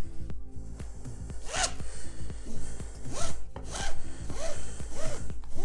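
Webbing straps of gymnastic rings being pulled through their buckles to lower the rings: a series of about six short zipping rasps, over background music.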